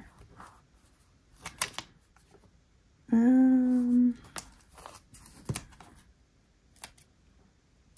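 Soft paper rustles and small clicks as sticker sheets are handled and stickers are pressed down onto a planner page. About three seconds in, a voice gives a steady held hum lasting about a second, the loudest thing heard.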